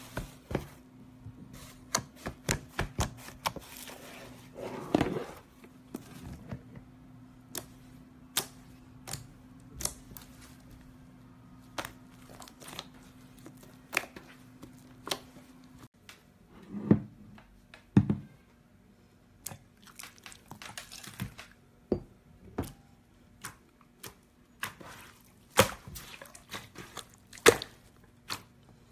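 Hands pressing, poking and kneading slime: irregular sharp clicks and pops of trapped air bursting, with a few longer squelches about five seconds in and again a little past halfway.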